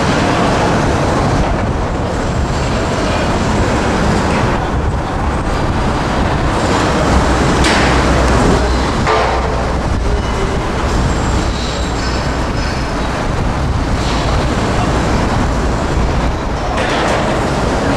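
Steady, loud rumbling outdoor noise with no distinct event standing out.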